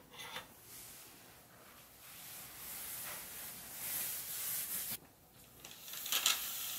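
Soft fabric rustling of a cotton duvet and bedsheets shifting on a bed, with a light click as eyeglasses are picked up at the start. A short quiet gap comes after, then sheer curtains are drawn along their rail near the end, with a few sharp clicks.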